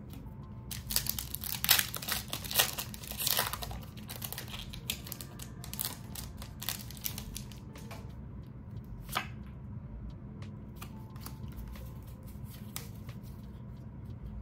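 Foil wrapper of a Pokémon Shining Fates booster pack being torn open and crinkled. The tearing and crinkling is loudest for the first few seconds, followed by quieter rustles and light taps.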